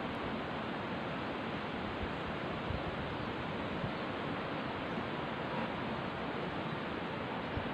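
Steady, even rushing of river water flowing past the rocks.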